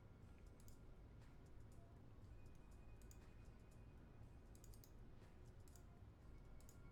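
Faint computer mouse clicks, scattered singly with a quick cluster about five seconds in, over a low steady room hum.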